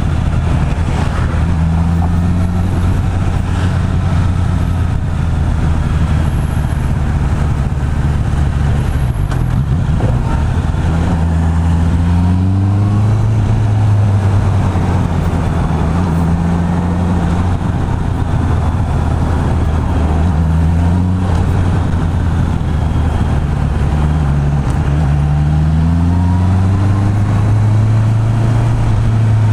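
Honda CB650R's inline-four engine running through its stock exhaust while riding, with wind noise on the microphone. The engine pitch rises twice through the gears, about a third of the way in and again near the end, and holds steady in between.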